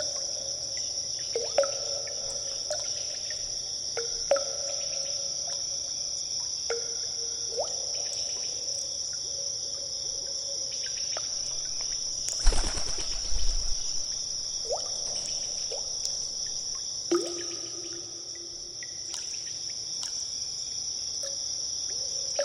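Cave ambience: water drops falling into a pool at irregular intervals, each a short plink that rises in pitch, over a steady high-pitched insect-like drone. About twelve seconds in there is a louder, heavier splash with a low thump.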